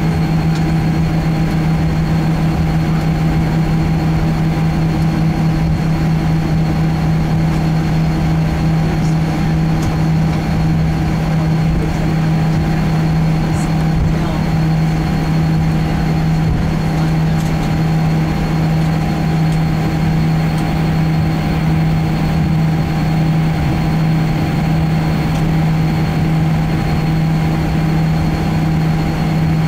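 Cabin noise inside a Boeing 737-800 taxiing, its CFM56-7B engines near idle: a steady drone with a strong low hum, a fainter high whine and a rumble beneath.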